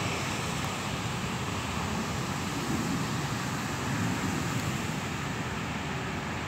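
Steady road traffic noise: an even hum with no distinct events.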